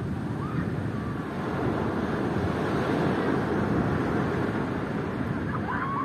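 Ocean surf breaking and washing up a sand beach, swelling to its loudest around the middle and easing off slightly toward the end.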